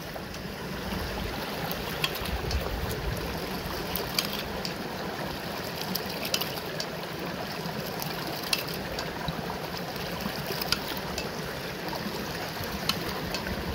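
Homemade hydraulic ram pump running slowly beside a rushing stream: its brass waste valve spills water and clacks shut with a sharp click every second or two, sometimes in pairs, as the pump slowly builds up delivery pressure.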